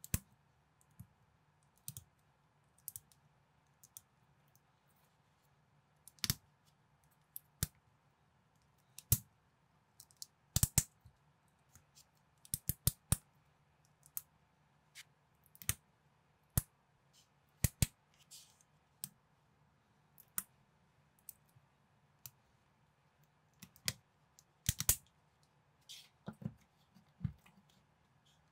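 LEGO-compatible plastic bricks clicking and snapping together as small pieces are pressed on by hand: scattered sharp clicks, some single and some in quick clusters of two or three, over a faint steady low hum.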